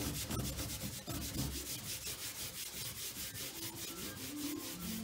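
Paper kitchen towel scrubbed back and forth over a gritty baking-soda-and-oil paste on a cabinet top: a quick, even scratchy rubbing rhythm, several strokes a second.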